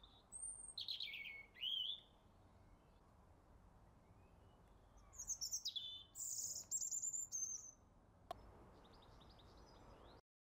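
Small birds singing: high, quick chirps and sweeping whistles in two loud runs, a short one near the start and a longer one in the middle, with fainter chirps near the end. A single sharp click comes near the end.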